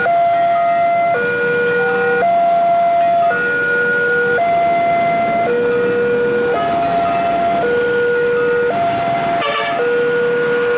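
Indonesian railway level-crossing warning alarm sounding from the crossing signal's loudspeaker while the barriers are down, warning of an approaching train. It is a steady electronic two-tone alternating between a higher and a lower note, each held about a second. About nine and a half seconds in, a brief louder sound cuts in over it.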